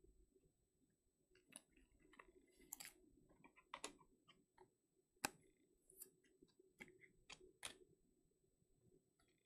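Faint, irregular clicks and taps of trading cards and rigid plastic top loaders being handled and slid together on a table, the sharpest tap a little after five seconds in.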